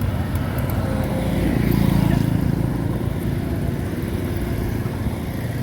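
A motor vehicle's engine rumbling low and steadily, swelling louder about two seconds in as if passing by.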